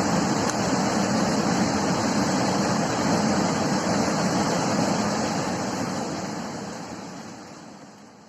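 Steady rush of flowing river water, fading out over the last three seconds or so.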